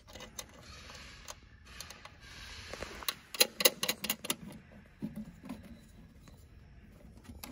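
Battery cables and terminal hardware being handled and fitted by hand: scattered clicks, then a quick run of sharp clicks and rattles about three to four and a half seconds in, with lighter rustling around them.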